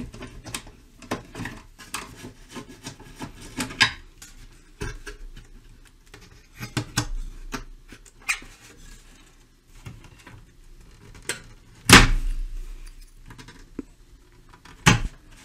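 Screwdriver and hands working on a 1956 Bush VHF90 valve radio as its chassis is removed: scattered clicks, taps and light metallic clinks of tools and parts, with a sharp knock about twelve seconds in and another near the end.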